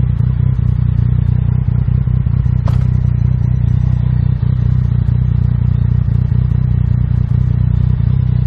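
Yamaha MT-09's three-cylinder engine idling steadily while the motorcycle stands still.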